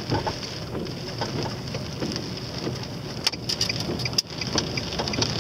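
Rain hitting a car's windshield and roof, heard from inside the moving car: a steady wash of many small sharp taps over the low hum of the road and engine.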